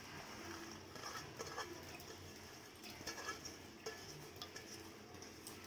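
Soaked red lentils (masoor dal) poured from a steel bowl into a pressure cooker: faint, scattered ticks and patters of the lentils and the bowl against the cooker.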